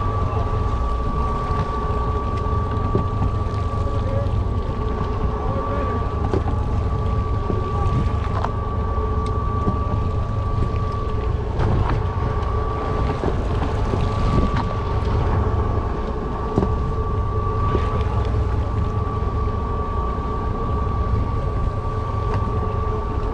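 Steady low drone of a sportfishing boat's machinery with a constant high whine that drops out briefly about halfway, and wind buffeting the microphone.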